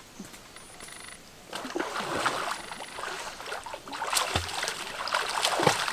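Water splashing and sloshing as a person wades and swims through a shallow stream, starting about a second and a half in and going on in uneven surges.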